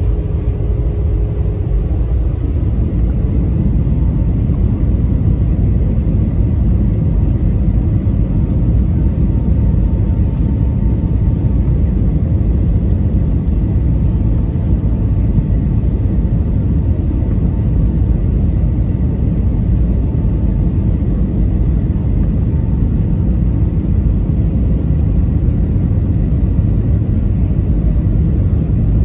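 Steady low rumble of cabin noise inside an Airbus A320-232 airliner descending towards landing: engine and airflow noise with a faint steady whine.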